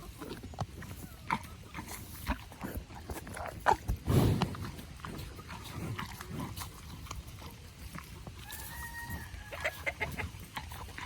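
Farm animals, cattle and chickens, feeding on produce scraps: close crunching, snuffling and pecking clicks, with a louder low huff about four seconds in and a short high call near the end.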